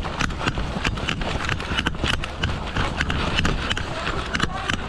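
Quick irregular footsteps of a person running over leaves and sticks on a woodland floor, with low rumbling noise on the microphone.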